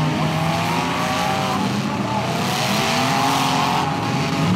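Several demolition derby pickup trucks' engines revving hard together, their pitches rising and falling as the trucks shove against each other.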